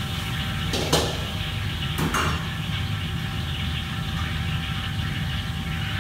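Commercial kitchen ambience: a steady low mechanical hum with a thin steady whine, and two short clatters about one and two seconds in.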